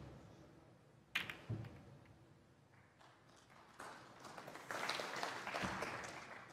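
Snooker balls knocking on the table: a sharp click about a second in and another half a second later as the cue ball strikes other balls. A rustling noise then builds and lasts for the last two seconds.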